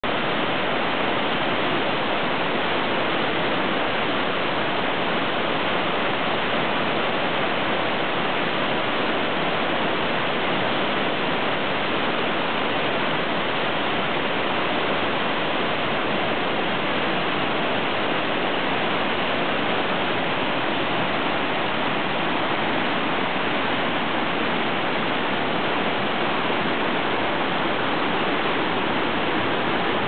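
Waterfall with two strands plunging onto boulders and churning down through rocky rapids: a steady, unbroken rush of falling water.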